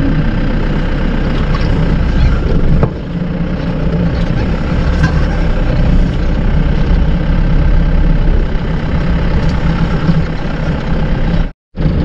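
Steady low engine rumble of heavy vehicles, dipping briefly about three seconds in and cutting out for a moment near the end.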